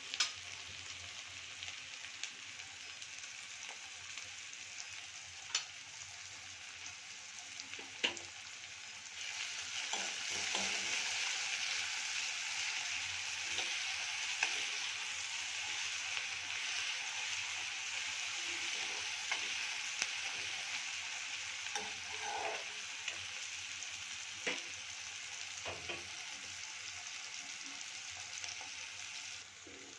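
Sliced onions and cumin seeds sizzling in hot oil in a kadhai, being fried soft and light brown. Now and then a metal spatula stirs them with short clicks and scrapes against the pan. The sizzle grows louder about nine seconds in.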